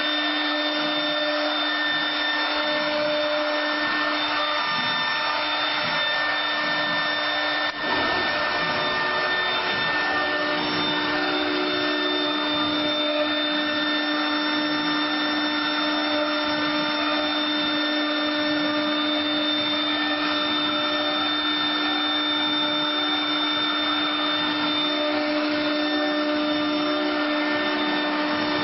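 LD-1325 wood CNC router running, its spindle giving a steady whine of several tones over a continuous hiss as it carves wood on the rotary axis. A brief drop about eight seconds in is followed by a slight change in the tone.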